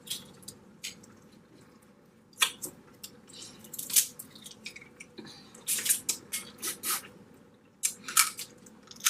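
Close-miked eating of boiled blue crab: wet sucking and chewing with sharp cracks of shell, coming in irregular bursts.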